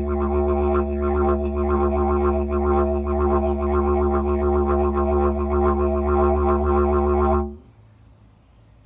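Lightweight didgeridoo played as a steady drone on one low note, with a fast pulsing texture running through its overtones. It stops abruptly about seven and a half seconds in.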